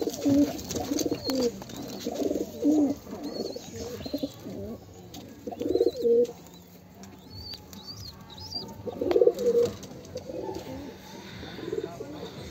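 Domestic pigeons cooing, several birds in overlapping bouts that come in clusters and thin out near the end. A few short high chirps are heard in between.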